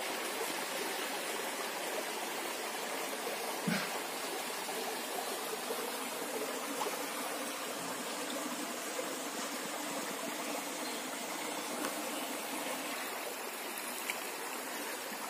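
Shallow stream running over rocks: a steady, even rush of water, with one brief soft thump a little under four seconds in.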